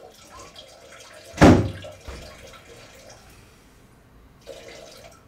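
A door shutting with a single loud thump about a second and a half in, followed by a softer short knock near the end.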